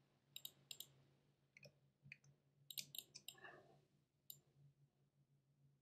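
Faint clicks of a computer mouse and keyboard. A few single clicks come first, then a quick run of keystrokes about three seconds in, and one more click a little later.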